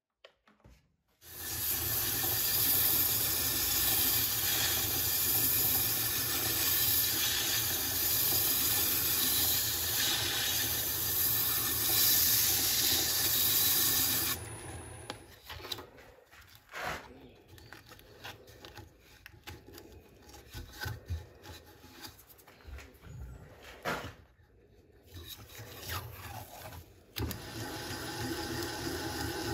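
Wood lathe spinning a birch goblet with sandpaper held against it: a steady rubbing hiss over the motor's hum. It starts about a second in, drops sharply about halfway to a quieter, scratchy rubbing, and grows louder again near the end.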